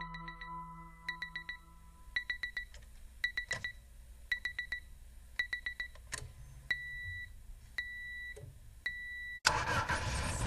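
Electronic beeping like a digital alarm clock: quick runs of three or four high beeps about once a second, then three longer single beeps a second apart. Near the end a car engine suddenly starts revving loudly.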